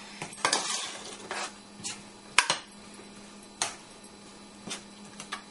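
Metal spoon stirring thick curry in a steel pan, knocking and scraping against the pan in a handful of separate clinks, the loudest about two and a half seconds in. A steady low hum runs underneath.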